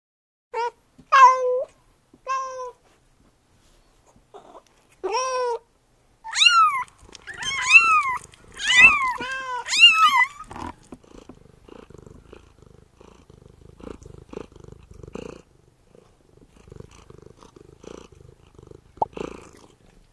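Domestic cat meowing: a few separate meows, then a quicker run of meows that rise and fall. About ten seconds in, the meows give way to soft, steady kitten purring.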